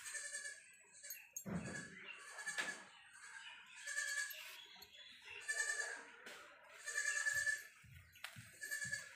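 An animal's short cries, repeated about every second and a half, with a few soft low knocks near the end.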